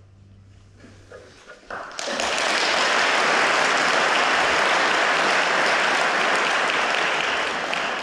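The string orchestra's last chord dies away into the hall; after a short hush, audience applause breaks out about two seconds in, holds steady, and begins to fade near the end.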